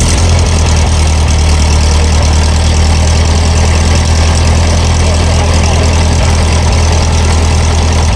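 Small lawn and garden tractor's engine idling steadily, just after being started.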